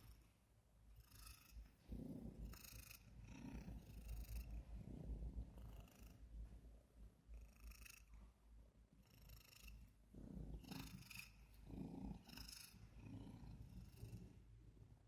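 Overweight domestic cat purring quietly, the purr swelling and fading with each breath about once a second, with odd airy, wheezy noises between the swells.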